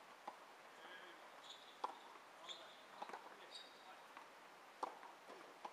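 Faint, sharp pocks of tennis balls being hit with rackets and bouncing on a hard court during a ball-feeding drill, five or six of them at irregular intervals of one to two seconds.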